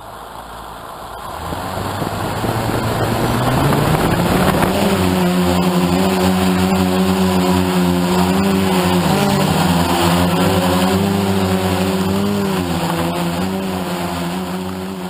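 Motors and propellers of a DJI F450 quadcopter, brushless 1130kv motors turning 9-inch APC props, spinning up from rest with a rising hum. They then run at a steady pitch at low throttle while the craft is still on the ground, with brief dips in pitch about 9 and 12 seconds in. It is heard from the camera mounted on the frame.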